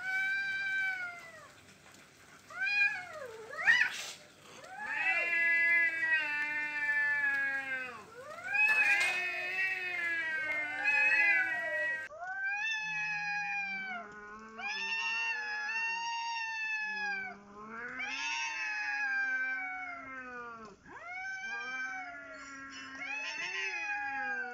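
Stray cats caterwauling at each other in a fight standoff: long, drawn-out yowls that waver up and down in pitch, one after another, with a sharp louder outburst about four seconds in.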